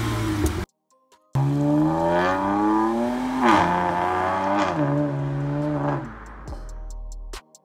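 BMW e92 335i's turbocharged inline-six accelerating hard away, its pitch climbing, dropping at an upshift about three and a half seconds in, then climbing again before fading as the car recedes. Near the end, electronic music with a ticking beat takes over.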